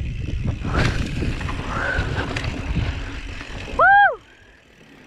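Mountain bike rolling over a dry dirt trail: tyre crunch, frame and drivetrain rattle and wind rumble. About four seconds in comes a short, loud squeal that rises and falls in pitch, and then the riding noise drops away to faint background.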